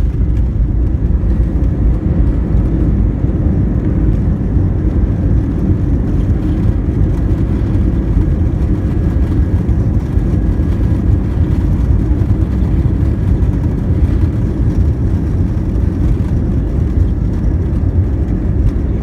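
Steady, loud low rumble of airliner cabin noise inside an Airbus A321, with faint steady tones above it.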